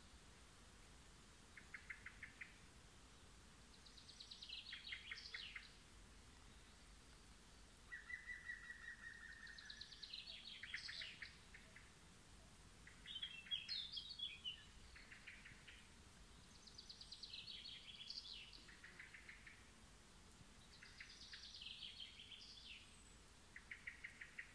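Songbirds singing, more than one bird: short trilled phrases, many falling in pitch, every one to three seconds, some overlapping.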